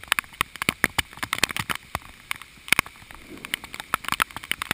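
Storm rain pelting a GoPro's waterproof housing: rapid, irregular sharp taps, several a second, over a faint hiss of rain.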